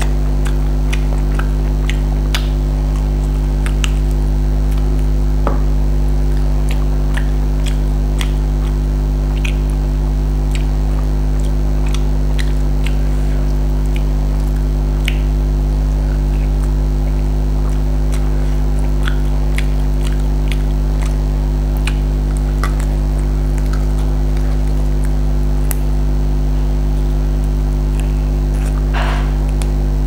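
A loud, steady low electrical hum on the recording, with scattered small wet clicks and smacks of someone chewing chicken-leg meat off the bone.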